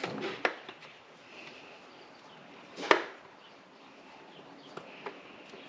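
A few sharp clicks and knocks from handling a wrench set's plastic retainer tray and its wrenches, with one loud knock about three seconds in and two light ticks near the end.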